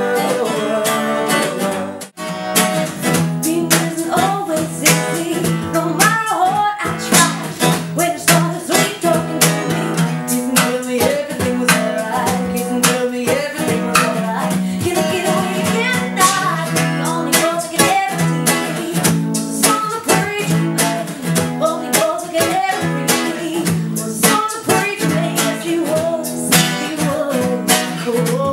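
Acoustic guitar strummed, with a melody line carried over it, as music from an acoustic duo. The music breaks off for a moment about two seconds in and then carries on.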